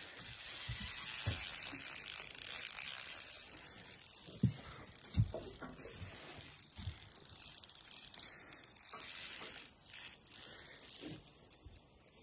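Spinning reel whirring and clicking under the load of a hooked carp being played. A couple of low knocks come about four and five seconds in.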